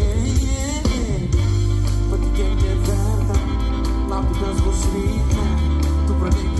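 Big band playing live with a male vocalist singing over it: a steady bass line, drum kit with regular cymbal strokes, and the band's horns.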